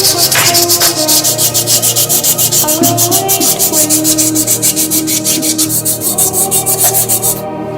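Fast, even sanding strokes rubbing over the surface of an old kettle during its restoration. They stop just before the end.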